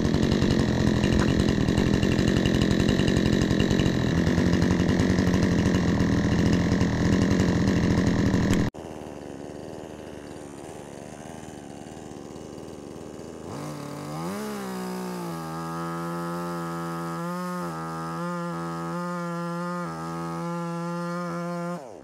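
Petrol chainsaw. For the first part it runs loud and close. After an abrupt cut it is heard from further off: it revs up steeply, holds at full throttle with a few brief dips, and its note drops away just before the end.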